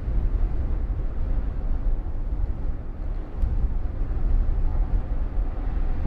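Steady wind, an even rush that is heaviest in the deep low end, with no distinct tones or knocks.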